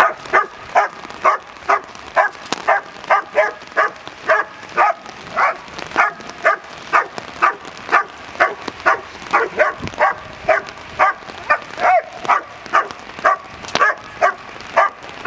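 Black German Shepherd barking over and over in a steady rhythm, about two barks a second. These are protection-training guard barks aimed at a decoy with a bite sleeve.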